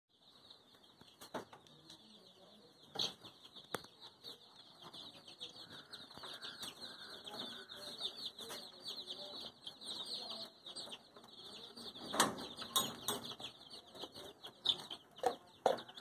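A flock of young chicks peeping continuously in short, high, falling chirps inside a metal mesh cage. Sharp metallic knocks and clatter break in a few times, most of them near the end as the cage is opened and the chicks rush out.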